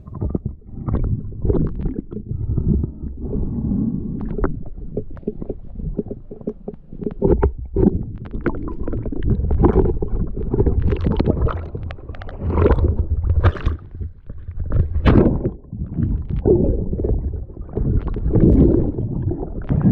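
Muffled, irregular low rumbling and sloshing of water against a GoPro in its waterproof housing, with short louder surges throughout.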